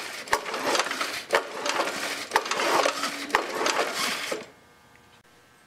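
Lawn mower engine being pulled over on its recoil starter with the spark plug out, a rough whirring with a sharp click about once a second, stopping about four and a half seconds in. The engine is being cranked to check for spark at the grounded plug.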